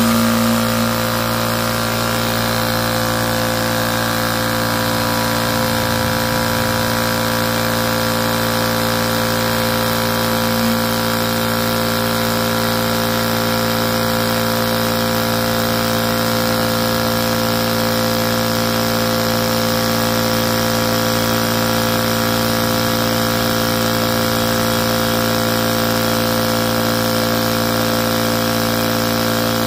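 Tuxing water-cooled high-pressure PCP air compressor running steadily at an even pitch as it pumps up a small air tank from empty.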